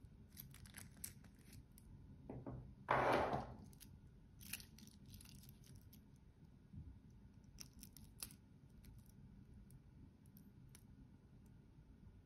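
Handling of a gold-tone stainless-steel bracelet watch. One brief, loud rasping scrape comes about three seconds in as the watch slides off its display cushion, with scattered light clicks and clinks of the metal bracelet links and clasp.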